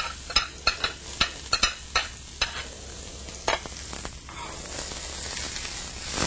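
Diced shallot sizzling in olive oil in a hot sauté pan, with a utensil clicking against the pan as it is stirred. The clicks come in a quick series over the first few seconds, then the steady sizzle carries on alone and grows a little louder near the end.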